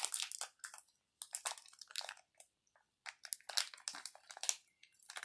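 Plastic fruit-snack wrapper crinkling as a Java macaque bites at it and picks at it with his fingers, in short irregular crackles with brief pauses.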